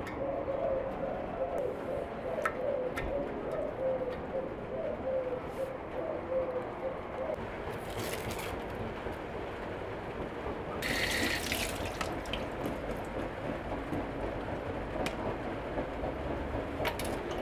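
A dove cooing over and over for the first several seconds over a steady background hiss, then short splashes of running water from a tap, the loudest about eleven seconds in, as hands are rinsed at a sink.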